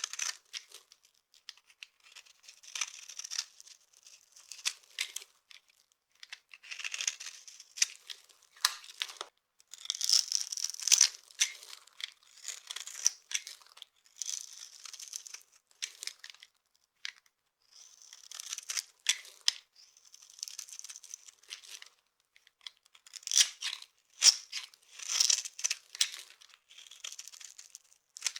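Dry, brittle soap pieces being crushed, a run of crisp crunching and crackling bursts with sharp snaps, broken by short pauses between squeezes.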